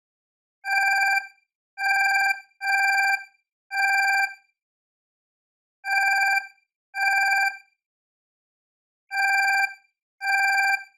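Alarm clock bell ringing in short rings of under a second each, about eight of them, bunched in uneven pairs with silent gaps of one to two seconds between.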